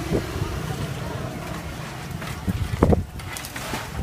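Outdoor street-stall background noise: a steady low rumble with wind buffeting the microphone, and a short knock just before three seconds in.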